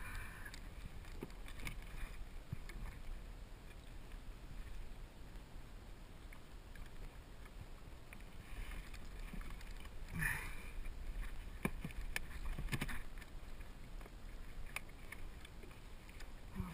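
Water sloshing against the side of a fishing kayak over steady wind noise, with a few short knocks and splashes between about ten and thirteen seconds in.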